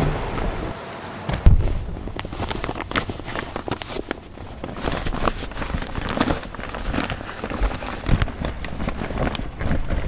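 Someone climbing into a car seat and handling a paper bag: a loud thump about a second and a half in, then irregular crinkling, rustling and small knocks.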